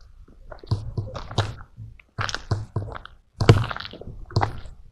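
Crunching footsteps on loose ground and rubble: a run of short, irregular crunches, a few with a dull thud.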